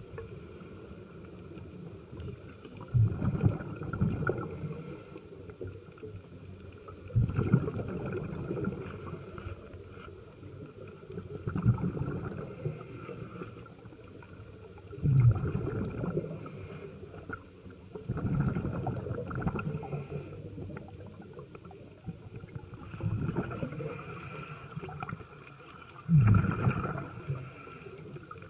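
Scuba diver breathing through a regulator underwater: seven bubbling rumbles of exhaled bubbles about every four seconds, each followed by a short hiss of inhalation.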